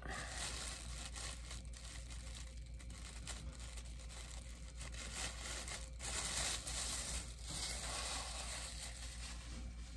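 Clear plastic wrapping bag crinkling and rustling as it is handled and pulled open, louder for a moment about six seconds in.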